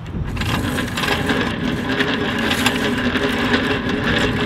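Warn XD9000i electric winch running with a steady motor hum, winding in its wire rope so that the line draws taut. It starts up just after the beginning.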